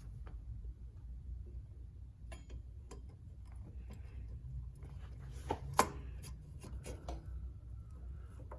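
Scattered light clicks and knocks of mini bike brake parts being handled and fitted by hand, with one sharper clack a little under six seconds in, over a low steady hum.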